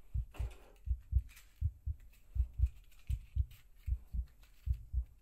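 Heartbeat sound effect: paired low thumps, lub-dub, repeating steadily at about 80 beats a minute.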